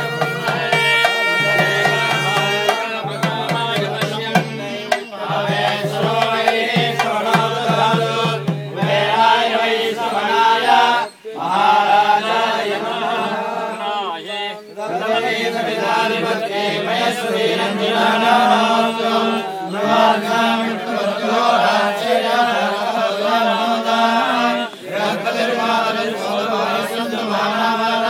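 A nadaswaram-style reed pipe plays over a steady drone with drum strokes, then stops after about nine seconds. A group of men then chants in unison.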